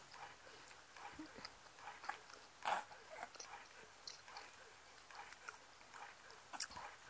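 Faint baby sounds: soft breaths, small mouth noises and little grunts from an infant being tickled under the chin, with one louder breathy sound about three seconds in.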